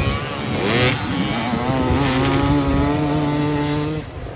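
Motocross dirt bike engines revving hard, the pitch rising and falling, then holding a steady high note before dropping away about four seconds in.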